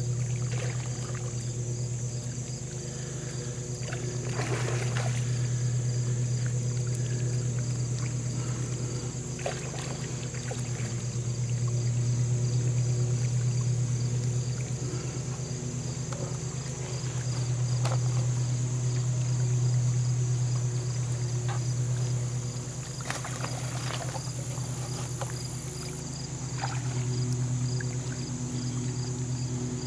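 A steady low motor hum that slowly swells and fades, over a steady chirring of insects. A few short splashes of channel catfish feeding at the pond surface break through now and then.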